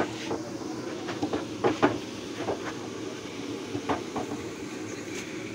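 Long metal slotted ladle knocking and clinking against an iron kadhai of frying puris, several scattered strikes in the first half and one about four seconds in, over a steady low rumble.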